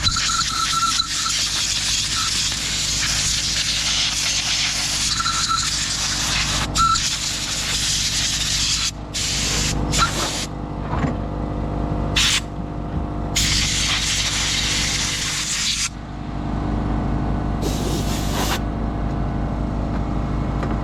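Compressed-air blow gun blasting fine sawdust out of a chainsaw's engine and cooling fins: one long hissing blast for about nine seconds, then several shorter bursts. An air compressor runs steadily underneath.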